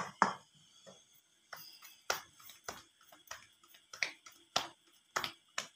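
A string of sharp clicks and taps, roughly one every half second, from hands and utensils at a flour-dusted wooden rolling board.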